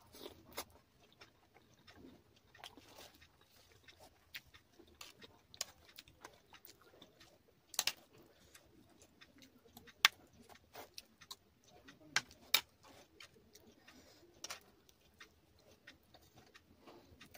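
Close-miked chewing and mouth sounds of eating puri with potato, pea and cauliflower curry: irregular sharp clicks, a few louder ones around the middle.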